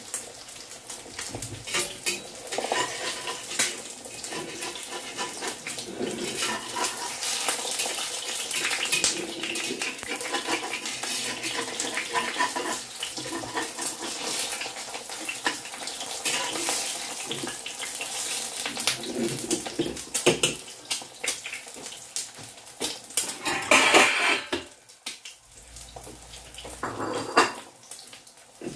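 Metal spatula scraping and clinking against a wok while an egg fries and sizzles in hot oil, with a louder scrape near the end.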